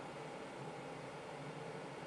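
Steady low machine hum with a hiss, unchanging, with no distinct knocks or clicks.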